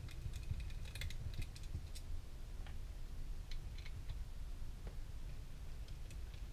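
Small scattered clicks and taps of metal and plastic airsoft gearbox parts being handled, as gears and their bushings are lifted out and swapped in the gearbox shell, with a cluster of clicks about a second in, over a low steady hum.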